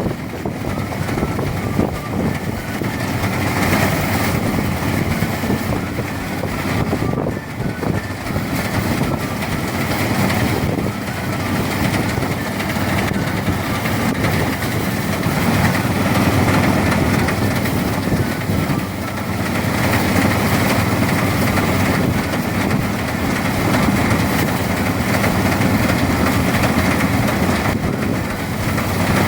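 Engine-driven rice threshing machine running steadily, a continuous loud mechanical din whose loudness rises and falls a little.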